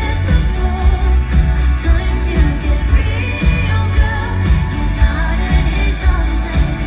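Live pop band with a female lead vocal, recorded from the audience: heavy bass and drums under a sung melody.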